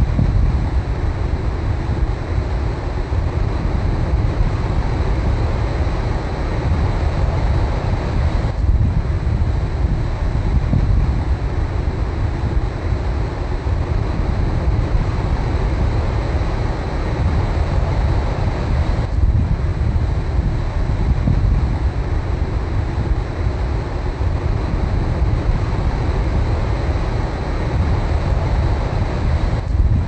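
Ocean surf breaking and washing up a beach in a steady rush, with heavy low wind rumble on the microphone. The sound drops out briefly twice, about nine and nineteen seconds in.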